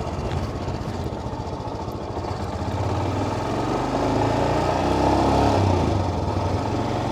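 Royal Enfield Himalayan's single-cylinder engine running under way, the motorcycle being ridden, getting louder about halfway through.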